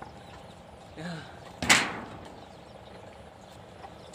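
A single sharp knock about one and a half seconds in, with a short ringing tail.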